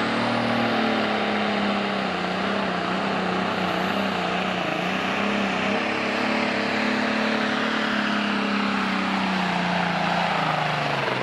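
Turbocharged diesel engine of a John Deere Super Stock pulling tractor running flat out under load as it drags the pulling sled, its pitch held high and wavering, then falling away near the end as the throttle comes off.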